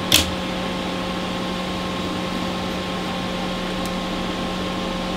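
Steady machine hum with a couple of faint steady tones in it, and one sharp click just after the start.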